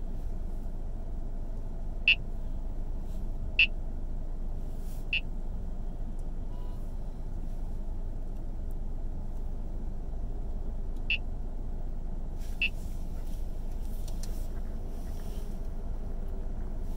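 Steady low rumble of a car idling in city traffic, heard from inside the car. Five short, high chirps cut through it: three about a second and a half apart early on, then two more the same distance apart later.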